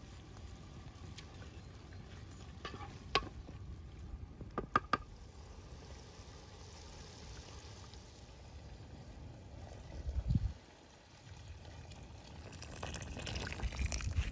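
Pot of pomegranate stew simmering over a wood fire while a wooden spoon stirs and ladles it, with a few sharp clinks against the pot. Near the end, water is poured from a kettle into the stew.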